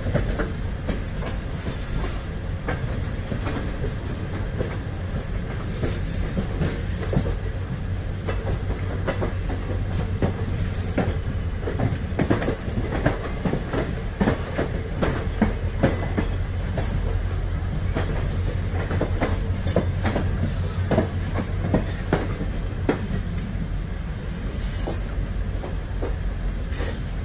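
Passenger train wheels rolling over the track, heard from aboard the moving train: a rapid, irregular clickety-clack of wheels over rail joints and points over a steady low rumble.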